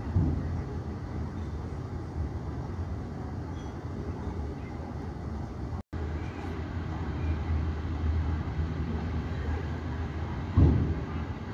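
Steady low rumble of airport apron noise, with aircraft and ground vehicles at a distance. There is a thump just after the start and a louder one near the end, and the sound cuts out for an instant about halfway.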